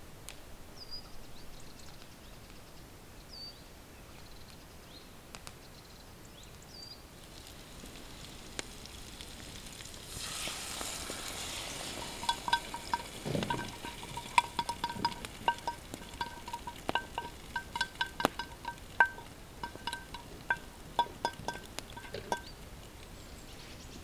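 A few faint bird chirps, then about ten seconds in, food starts sizzling in a pan over a campfire. From about twelve seconds, a utensil stirring in the pan makes rapid, irregular clinks that ring briefly.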